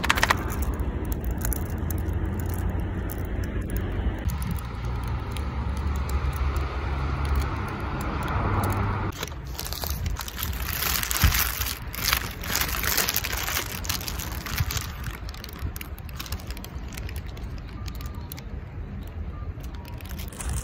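Wind rumbling on the microphone, then from about nine seconds in, paper and plastic wrapping crinkling as a burger is unwrapped.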